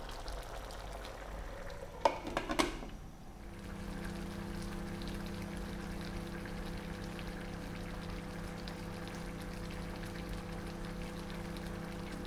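Coconut-milk sauce with crab and green beans simmering in a pan, a faint bubbling. Two sharp knocks about two seconds in, then a steady low hum sets in.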